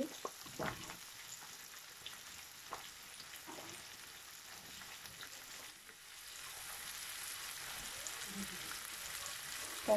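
Courgette strips sizzling in hot oil in a frying pan, with a few light knocks in the first few seconds as more pieces drop in. The sizzle grows louder about six seconds in.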